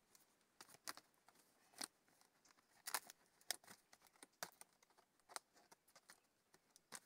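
Faint, irregular crinkles and clicks of the white sheet of a delta insect trap's housing being folded and handled.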